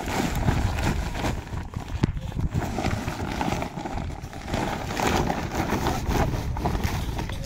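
Woven plastic sacks full of mangoes rustling and scraping as they are handled and folded shut, over a steady low rumble.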